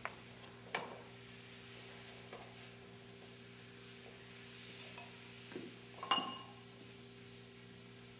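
Small terracotta flower pots clinking as they are lifted off a stack and set down one at a time: about five separate clinks, the loudest and most ringing one about six seconds in. A steady low hum runs underneath.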